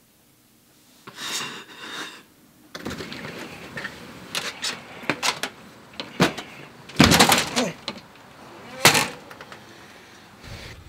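A house's front door and storm door being opened: a run of clicks and knocks from the latch and handle, with two loud bangs of the door, the second about nine seconds in.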